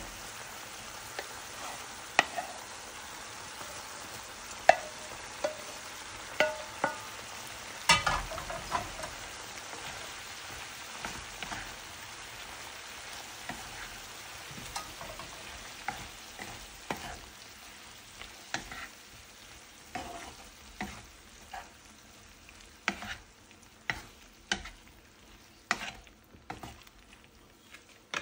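Beef, cherry tomatoes and aubergine sizzling in a nonstick frying pan while a wooden spatula stirs them, knocking and scraping against the pan many times. A louder clatter comes about eight seconds in, and the sizzle grows fainter toward the end.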